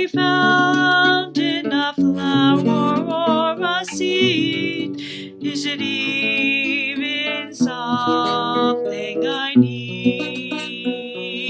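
A woman singing with her own acoustic guitar accompaniment: long held sung notes, some with a wavering vibrato, over guitar chords, with short breaths between phrases.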